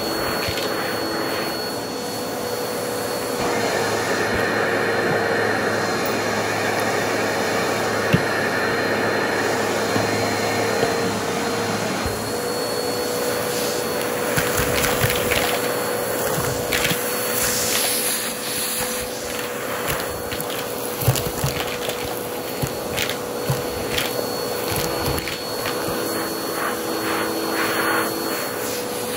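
Vacuum cleaner running steadily, drawing through a hose fitted with a red plastic cup that is pressed against carpet. The suction sound grows heavier from about 3 seconds to 12 seconds in, and sharp clicks now and then are coins being sucked up and rattling into the hose.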